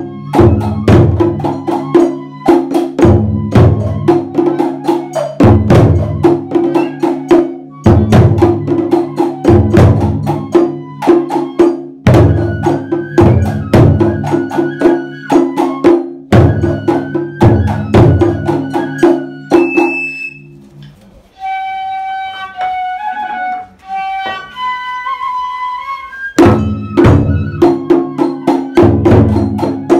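Tochigi-style festival ohayashi: stand-mounted taiko drums (tsuke-daiko) struck with wooden sticks in a fast, driving rhythm, with a bamboo transverse flute playing a melody over them. About twenty seconds in, the drums stop and the flute plays alone for about six seconds. Then the drumming comes back in near the end.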